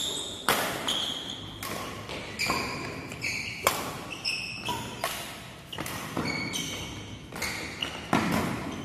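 Badminton doubles rally: rackets hitting the shuttlecock in a quick string of sharp hits, about one every half-second to second, many followed by a short high ring, echoing in a large hall.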